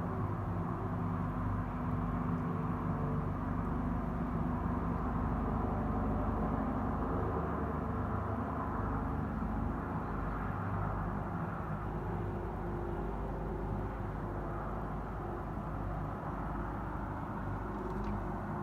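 A low, steady droning hum made of several held tones, over a constant distant rush: the unexplained trumpet-like sky sound.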